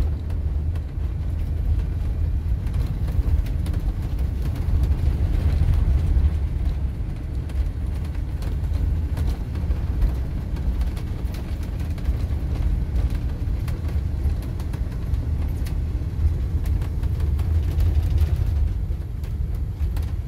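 Steady low rumble of a large motorhome driving along, engine and road noise heard from inside the cab.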